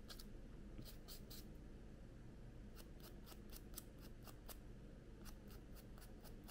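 Nail file rasping across a shellac-coated fingernail in short, quick, faint strokes, with a pause after about a second and a half before a faster run of strokes. This is filing to rough up the shellac before it is taken off with remover.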